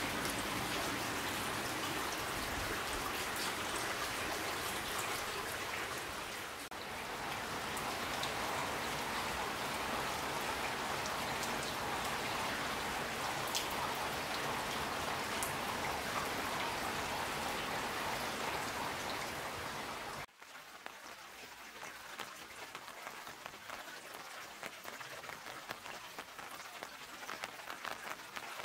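Steady rain falling on the roofs and wet street of an old wooden post town. About two-thirds of the way through, the rain sound drops suddenly to a quieter level.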